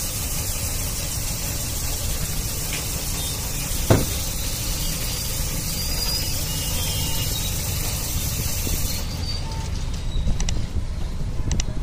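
Steady rumble and hiss of passing road traffic, with one sharp knock about four seconds in.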